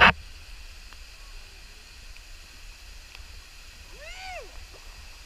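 Steady rushing of flash-flood waterfalls and the swollen creek. There is a sharp knock right at the start, and a single short call rises and falls about four seconds in.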